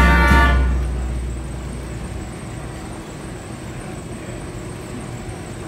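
Music dies away within the first second, leaving the steady low rumble of a tram moving slowly.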